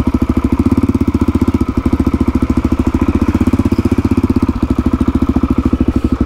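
Suzuki DR-Z400 single-cylinder four-stroke engine idling steadily, with an even, rapid beat of about eleven or twelve pulses a second.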